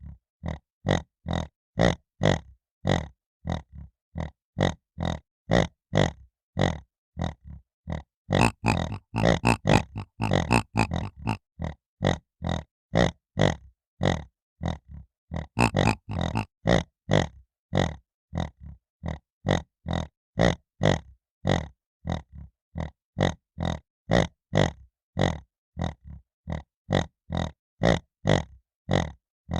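Piglet grunting in short, evenly spaced grunts, about two a second, breaking into faster, denser flurries of grunts about a third of the way in and again near the middle.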